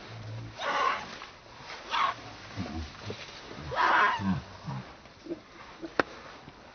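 Monkeys calling: harsh, noisy cries about a second in, again around two seconds and around four seconds in, with a single sharp click near the end.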